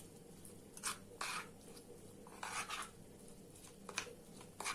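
Chopped onion soaked in honey being pressed in a strainer to squeeze out its juice: several short scraping, rubbing sounds.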